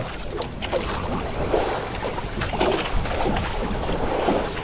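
Wind and water noise on a small fishing boat at sea, rising and falling unevenly, with wind buffeting the microphone.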